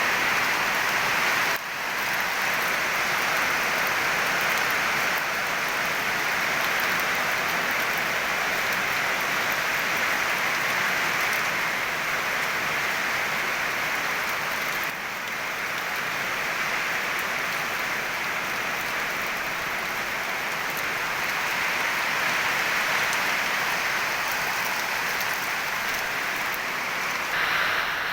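Heavy rain pouring down in a rainstorm, a steady dense hiss of rain on surfaces, with brief dips about a second and a half in and halfway through.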